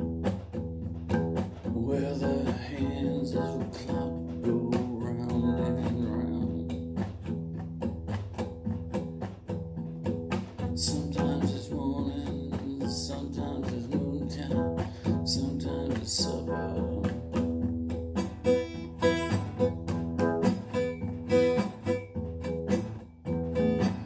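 Acoustic guitar strummed and picked in a steady rhythm, played as a song's instrumental opening.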